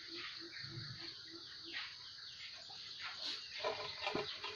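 Birds chirping, with a quick run of short, evenly repeated low notes in the first two seconds and a few sharp clicks near the end.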